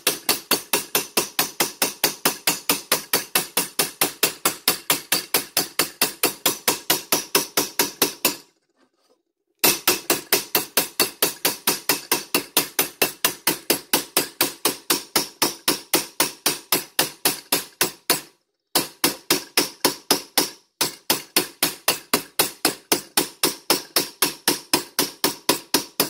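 Ball peen hammer striking a silverware spoon bowl laid face down on a steel rolling-mill texture die, hammer-texturing the die's pattern into the metal. A fast, even tapping of about four blows a second, stopping for about a second some eight seconds in and pausing briefly twice more later.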